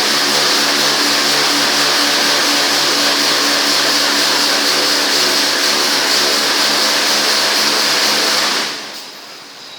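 Touchless car wash machine running, its high-pressure pump motor humming under a steady hiss of water spray; it shuts off suddenly near the end.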